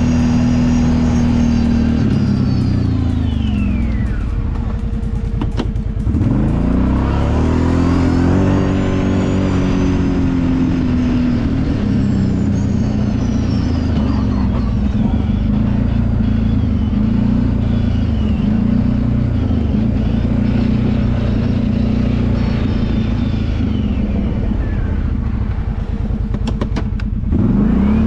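Kawasaki Brute Force 750 ATV's V-twin engine running under changing throttle. The revs fall a few seconds in, climb again around six to eight seconds, hold fairly steady, then drop and pick back up near the end.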